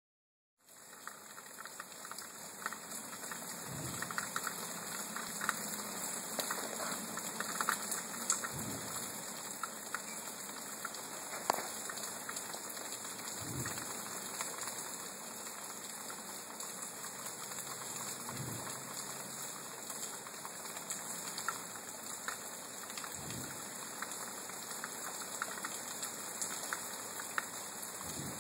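Steady rain falling, with five low, dull booms at even intervals of about five seconds. The booms are too rhythmic to be thunder, and their source is unexplained.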